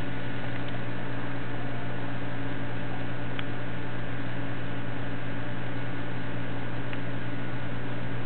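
Saltwater aquarium pumps humming steadily over an even hiss, with two faint ticks.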